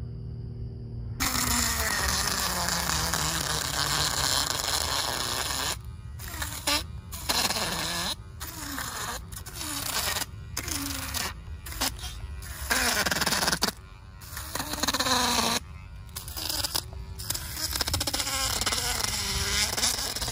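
Handheld electric fish descaler running, its spinning head scraping the large scales off a redfish. The buzzing scrape starts about a second in and breaks off for short moments again and again as the tool is lifted and set back on the fish.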